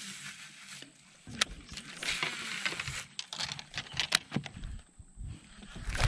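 Baitcasting rod and reel in use during a cast and retrieve. There is a rushing hiss, several sharp clicks and some low knocks.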